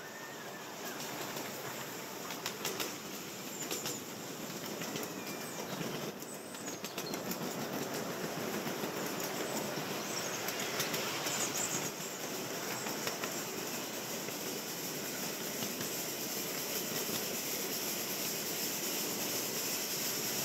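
Third-scale Burrell showman's steam traction engine running on the move, a steady mechanical clatter with occasional clicks that slowly grows louder.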